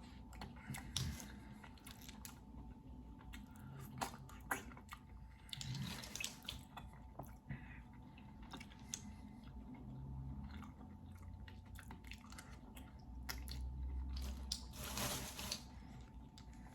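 Close-miked eating of seafood-boil clams: chewing and wet, squishing mouth sounds, with many scattered sharp clicks and a short hiss near the end.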